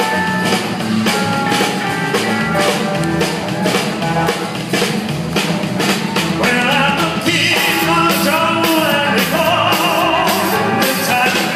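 Live rock-and-roll band playing an uptempo number on electric and acoustic guitars, bass, drum kit and congas. About halfway through, a wavering lead line is held over the band.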